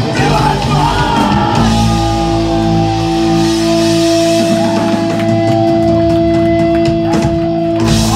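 Live rock band playing loud with electric guitars, bass and drum kit, with singing in the first second or so. From about two seconds in a long note is held until near the end, where the drums crash.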